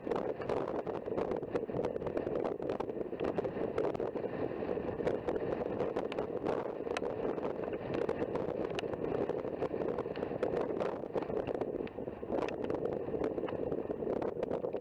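Wind rushing over the microphone, a steady noise broken by frequent crackles and pops.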